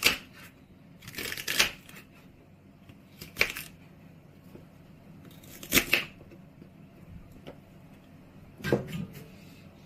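Knife cutting through celery stalks onto a wooden cutting board: a handful of crisp single cuts with pauses of a second or two between them.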